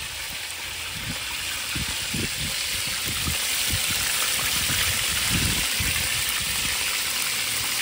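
Chicken wings deep-frying in a large steel pan of oil, a steady sizzle.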